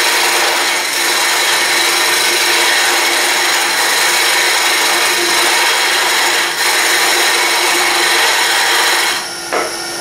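Roughing gouge cutting a spinning curly maple and walnut handle blank on a wood lathe: a steady scraping of wood being peeled off, over the lathe's steady hum. The cut breaks briefly about two-thirds of the way in and stops near the end.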